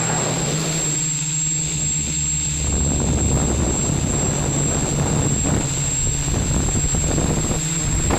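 Quadcopter's electric motors and propellers buzzing, picked up by its onboard camera, with wind rushing over the microphone and a steady high whine throughout. The motor hum shifts in pitch about a second in as the throttle changes.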